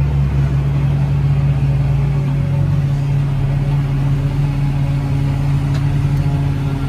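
Tractor engine and PTO-driven trailed forage harvester running steadily under load while chopping maize and blowing it into a trailer, a constant mechanical drone. The deep rumble eases a little just over two seconds in.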